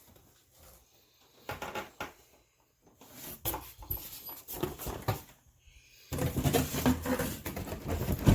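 Rustling and bumping of wrapped parts and packaging being handled. It comes in scattered bursts at first and grows denser near the end.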